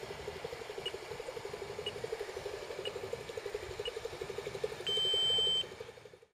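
RC model paddle steamer running at full ahead, a fast steady rhythmic beat, with a faint high chirp about once a second. About five seconds in, a loud electronic beep sounds for under a second, then the sound fades out.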